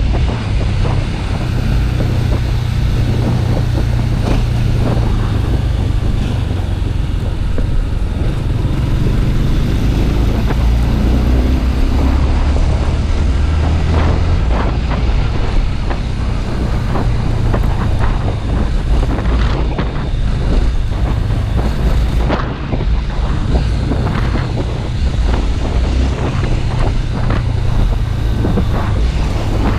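Honda Twister single-cylinder motorcycle engine running while being ridden, with wind buffeting the microphone. The engine pitch rises briefly about a third of the way through.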